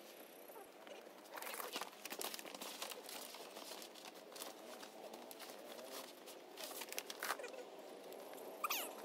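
Plastic banner sheeting crinkling and rustling as it is handled and pulled against a stick frame, in an irregular run of crackles and light knocks. A brief squeak comes near the end.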